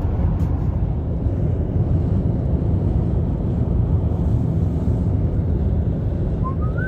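Steady low road and engine rumble inside a moving car's cabin. Near the end a short rising tone sounds.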